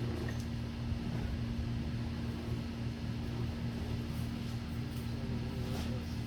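An engine running steadily at idle, a low hum with a fixed tone that does not change.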